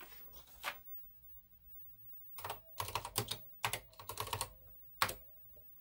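Keys being typed on a NASCOM 1 computer's keyboard to enter a monitor command. There is one keystroke, then a quick run of keystrokes from about two and a half seconds in, and a last single, sharper key press about five seconds in.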